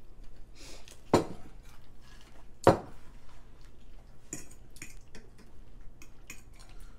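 Cutlery clinking and scraping on plates, with two sharper knocks, one about a second in and the loudest just before three seconds in.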